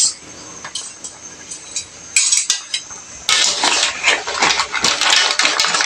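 Metal utensil clinking and scraping against a wok of boiling seafood, with shells clattering, as shrimp and mussels are scooped out of the boiling water. A short clatter comes about two seconds in, and dense clattering runs from about three seconds on.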